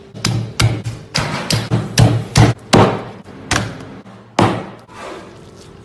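Cleaver chopping through a rack of rib bones on a cutting board: about ten sharp chops at uneven spacing, the last hard one about four and a half seconds in.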